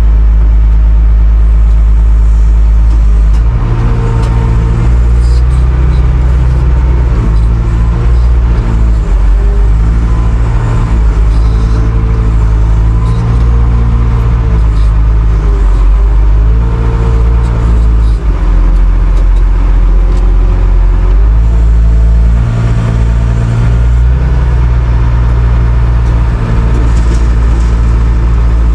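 Diesel engine of a farm loader running loud and close, its speed rising and falling repeatedly for most of the clip before settling back to a steady run.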